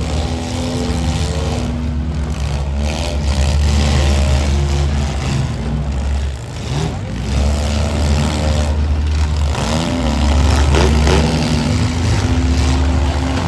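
Several compact demolition-derby cars' engines running and revving hard under a heavy low rumble, the revs repeatedly rising and falling as the cars push and ram one another.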